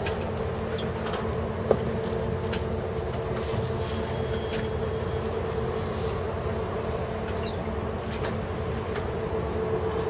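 An engine running steadily with a constant low hum and a steady tone, with scattered light clicks and one sharper click about two seconds in.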